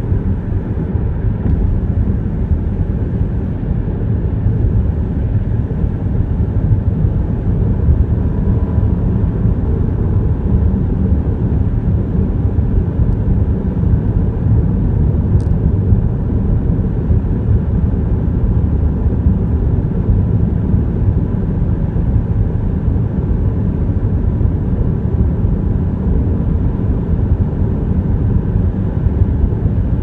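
Steady road noise heard inside a moving car's cabin: a low, even rumble of the tyres and car on the road.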